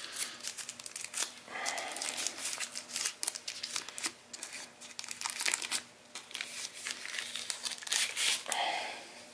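Plastic bag crinkling and crackling in the hands as it is worked open and pulled off a small battery, an irregular run of sharp crackles.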